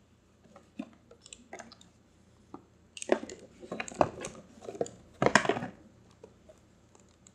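Handling noise from a plastic hair dryer and its cardboard box: scattered light knocks, clicks and rustling, heavier about three seconds in and again about five seconds in.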